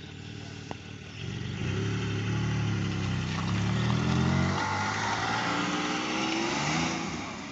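A car engine accelerating as the car drives out past. It builds about a second in, stays loud for several seconds with its pitch climbing and stepping, then fades near the end.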